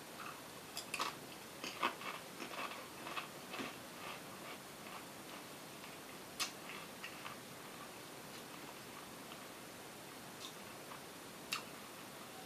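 Faint crunching of a Taco Bell fire tortilla chip being bitten and chewed: a quick run of crisp crunches over the first few seconds, thinning out to an occasional click.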